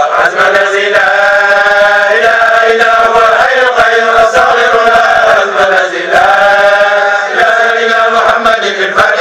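A group of men chanting Sufi dhikr together, drawn-out phrases held and sliding slowly in pitch, loud and continuous.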